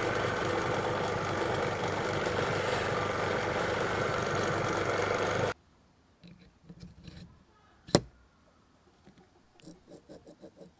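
Bench grinder running steadily with the knurled steel chuck of an old hand drill held against its polishing wheel; the sound cuts off suddenly about five and a half seconds in. After that, light clicks and taps of small metal parts being handled, with one sharp click around eight seconds in.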